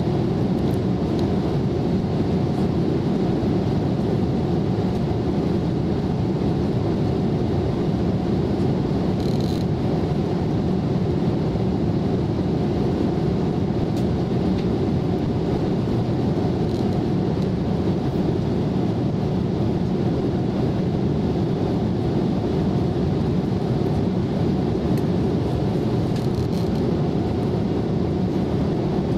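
Steady cabin noise of an airliner in flight, heard inside the cabin: a constant low rumble of engines and rushing air that does not change.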